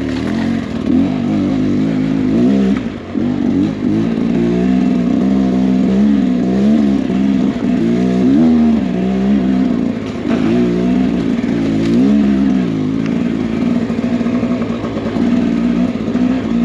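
Beta X-Trainer 300 two-stroke dirt bike engine revving up and down again and again as the throttle is worked, in quick swoops of pitch, settling to a steadier note near the end.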